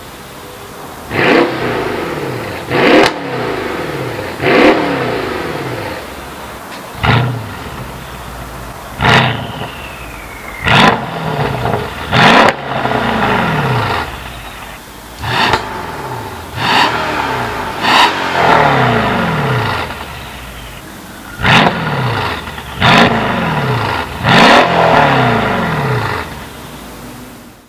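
Mercedes CLS63 AMG's twin-turbo V8 revved repeatedly through an aftermarket valved exhaust, about thirteen quick blips of the throttle, each dropping back to idle.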